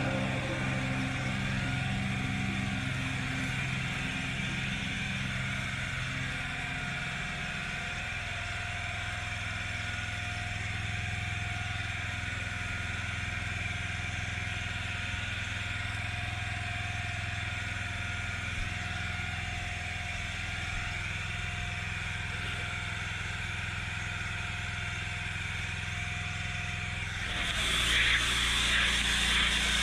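Pressure washer running steadily while its lance sprays a jet of water onto stone patio slabs, a constant motor drone under a steady hiss. Near the end the spray hiss gets louder and harsher.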